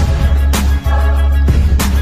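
Background music with a heavy, steady bass line and a sharp drum hit twice, about a second and a quarter apart.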